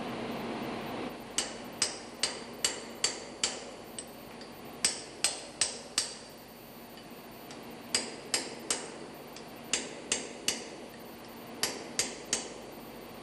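Hammer tapping on a tool in short runs of sharp metallic strikes, three to six at a time about two or three a second, each with a brief ring. This is the locking discs on the lock nuts of a MAN B&W engine's chain tightener bolt being bent out.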